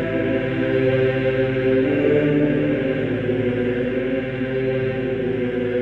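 Background music of voices singing a slow chant, holding long sustained notes that shift in pitch every second or two.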